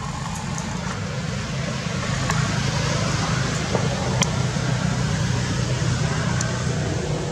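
Steady low rumble with hiss, a little louder from about two seconds in, with a few faint sharp clicks.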